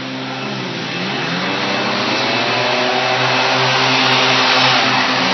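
Leaf blower running steadily. Its pitch dips briefly about a second in and comes back up, and it grows louder.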